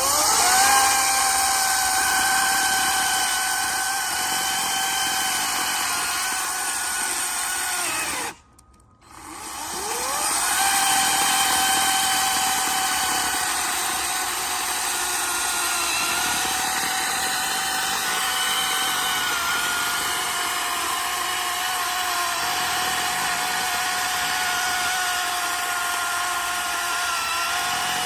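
Electric power tool motor spinning up with a rising whine and running at a steady high pitch. It stops abruptly about eight seconds in, then spins up again and runs steadily to the end.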